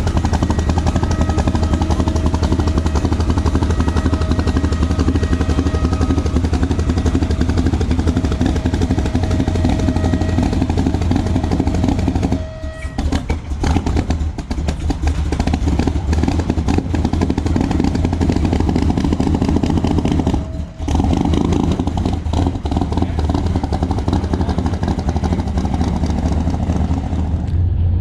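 Vehicle engines running steadily and loudly, with a steady whine over them for the first dozen seconds. The sound breaks off abruptly twice, about 12 and 21 seconds in.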